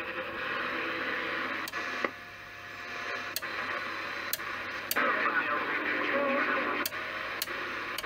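President Zachary T CB radio's speaker hissing with receiver static while the channel selector is turned down one channel at a time, with a sharp click at each of about seven steps. The static drops for a moment after the second click and comes back strong in the second half.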